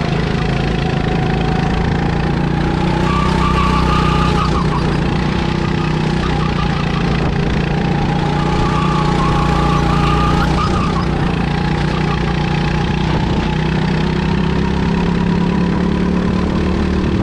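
Kart engine running hard at speed, heard from the driver's seat. Its pitch rises and falls several times as the kart accelerates and backs off around the lap, over a steady rush of noise.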